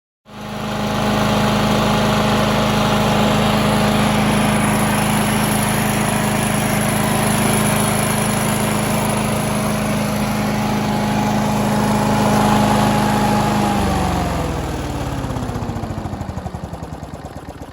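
Petrol rotary lawnmower engine running at a steady speed, then shut off about 14 seconds in, its pitch falling as it slows and coasts toward a stop with single firing pulses becoming audible.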